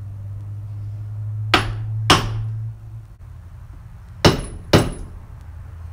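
Hammer blows on a boat trailer wheel hub, driving in a grease seal: four sharp strikes in two pairs, each pair about half a second apart. A steady low hum underneath stops about two and a half seconds in.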